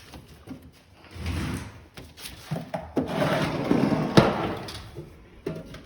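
Furnace's lower sheet-metal access cover being handled and pulled off: scraping and rattling, with several sharp knocks, the loudest about four seconds in.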